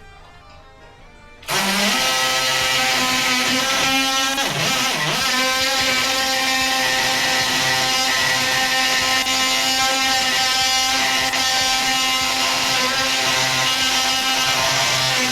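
DeWalt oscillating multi-tool cutting through a seat security screw, a loud, steady buzz at one even pitch over a hiss. It starts abruptly about a second and a half in.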